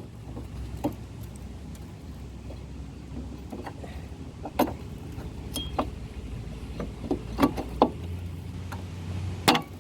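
Scattered sharp metallic clicks and knocks of a front brake caliper being set back on over new brake pads, over a steady low hum.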